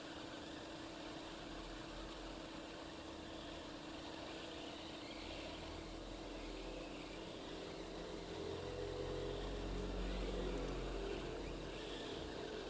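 Hot-air rework station blowing steadily, with a constant hum, while desoldering the NAND flash chip from an iPhone 6 logic board. A low rumble swells in the second half, loudest about ten seconds in, then fades.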